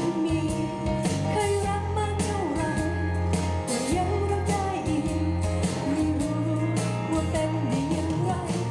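Pop song on a backing track with a steady bass and drum beat, and a woman singing live over it into a handheld microphone.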